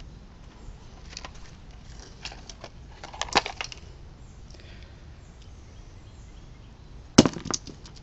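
Scattered sharp knocks and clicks of an AC adapter being broken apart for its copper. There is a louder double knock about three seconds in, and the loudest cluster of knocks comes near the end.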